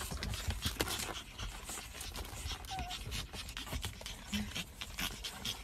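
Pug puppies panting and shuffling about in a fabric pet carrier, with scratchy rustling and a couple of brief faint squeaks.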